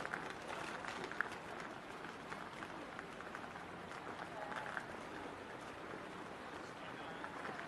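Canal-side ambience: a steady hash of small ticks and splashes from water lapping against moored boats and wooden mooring posts, with scattered footsteps on the stone quay.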